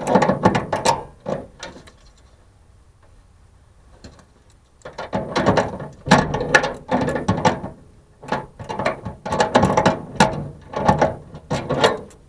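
Needle-nose vise grips tightening the metal lock nut on a truck toolbox lock: repeated metallic clicking and scraping in short runs as the nut is turned. The clicking pauses for about three seconds after the first two seconds, then carries on.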